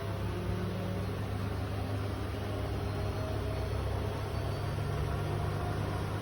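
Washing machine on its spin cycle: a steady low hum and whir from the spinning drum and motor, with faint tones creeping slowly upward in pitch.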